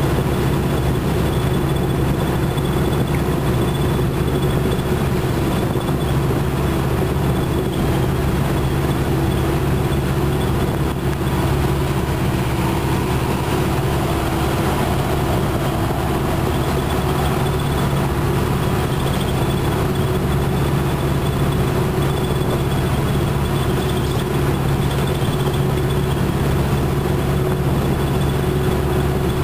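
Inside a 1996 Nova Bus Classic at highway speed: its Detroit Diesel Series 50 engine running steadily under road and tyre noise, with a thin, steady high whine over the top.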